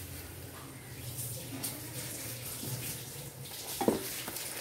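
Thick homemade tomato puree poured from a steel bowl into a hot pan of fried onions and spices, with a steady hiss as it lands. A light knock near the end.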